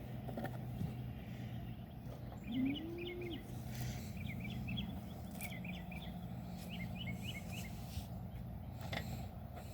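Birds chirping in quick clusters of short high notes for several seconds, over a steady low background hum; a brief low tone rising and falling near the start is the loudest moment.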